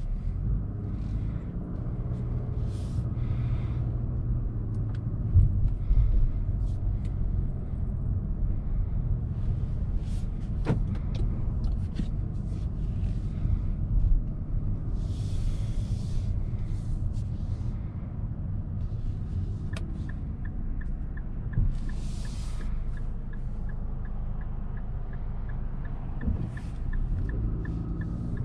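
Steady low rumble of road and engine noise inside the cabin of a 2021 Infiniti QX50, its 2.0-litre turbocharged four-cylinder driving through a CVT, with a brief hiss now and then. About twenty seconds in, a light regular ticking, about two a second, starts and runs until near the end.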